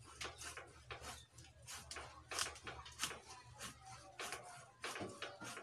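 Jackfruit tree branches being cut by hand: irregular sharp chopping knocks, about two or three a second, over a low steady hum.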